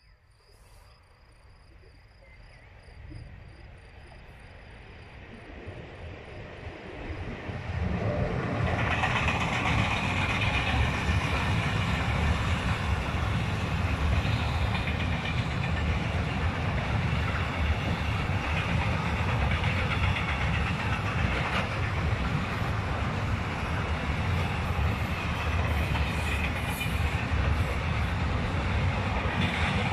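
Freight train approaching, growing steadily louder over the first eight seconds. Then an ÖBB electric locomotive and its container flat wagons pass close by with a loud, steady rumble and clatter of wheels on rail.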